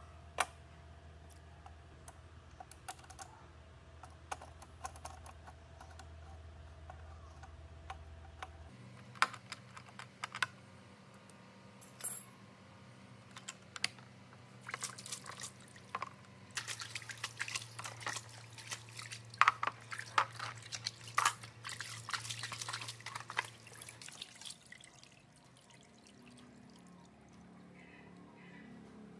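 Scattered small clicks and taps of plastic and metal as hands handle a motherboard's CPU socket and fit its plastic socket cover, coming thick and fast for several seconds past the middle.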